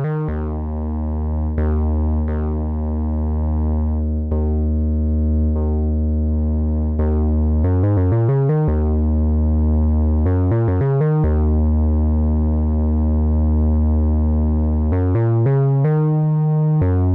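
Akai Timbre Wolf analog synthesizer playing a sustained, fat bass line broken by quick runs of notes. Shorter bright notes on top fade with a downward sweep in tone.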